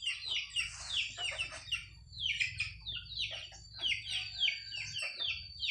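Chicks peeping: many short chirps, each falling in pitch, overlapping in a steady stream.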